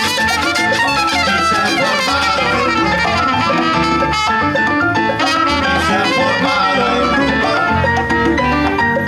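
Salsa band music, an instrumental passage with no singing: held melodic notes over a steady percussion beat.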